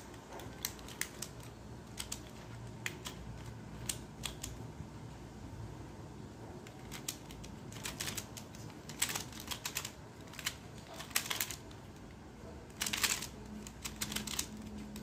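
Plastic Pyraminx puzzle, a glow-in-the-dark ZQ model, being turned quickly by hand: a run of irregular light clicks and clacks from its layers and tips, busiest about nine and thirteen seconds in.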